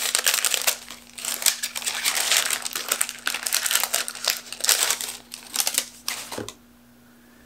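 Paper wrapping crinkling and rustling as it is unfolded by hand to take out a square camera filter. The crinkling is irregular and stops about six seconds in.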